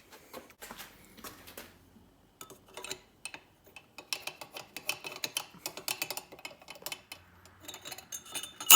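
Metal parts of an air compressor pump being handled and tapped during reassembly: a run of light clicks and taps, then one sharp metallic clink that rings briefly near the end.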